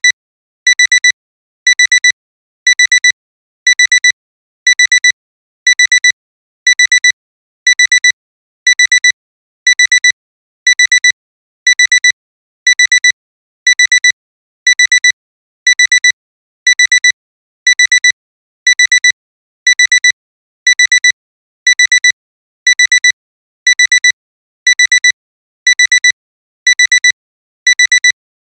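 Digital alarm clock alarm beeping: short bursts of rapid, high beeps repeating about once a second, signalling that the timer has run out.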